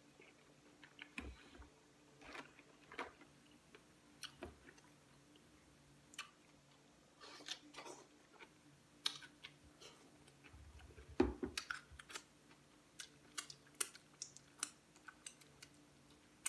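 Boiled crawfish being peeled by hand over a bowl of butter sauce, with irregular shell clicks and crackles mixed with chewing. The loudest crackle comes about eleven seconds in.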